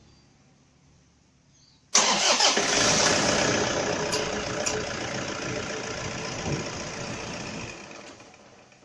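Toyota 2KD four-cylinder turbodiesel engine starting suddenly about two seconds in and running, fed from a bottle of diesel purge fluid instead of its fuel tank. The sound then dies away gradually and is gone near the end.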